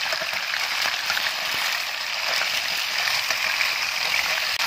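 Pieces of houbara bustard meat sizzling steadily in hot mustard oil and butter in a steel pan, with small crackles, as they start to fry.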